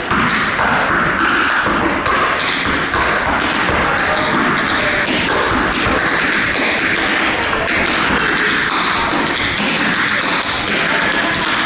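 Tap shoes striking a wooden floor in fast, continuous rhythms of taps.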